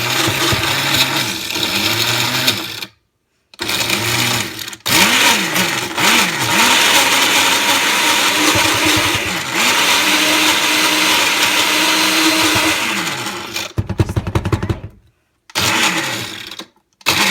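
Countertop blender running in several bursts with short stops between them, churning a thick mix of Takis chips, banana and ice cream. Its motor pitch repeatedly drops and climbs back as the load shifts, with a rattly stretch about fourteen seconds in.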